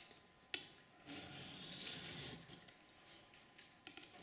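Steel knife blade stroked along a wet medium-grit diamond sharpening stone: a soft rasping scrape about a second in, lasting over a second, with a light tick just before it. The blade is being honed to raise an edge on a dull old knife.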